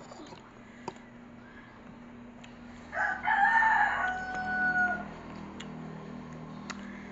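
A rooster crowing once, about three seconds in, for about two seconds, ending in a long held note.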